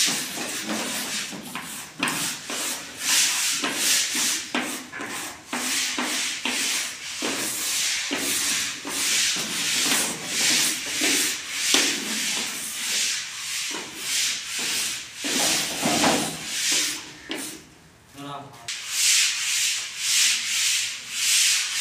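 Hand sanding of a plaster ceiling: sandpaper rubbed back and forth over the surface in rasping strokes, about two a second, with a short pause a little before the end.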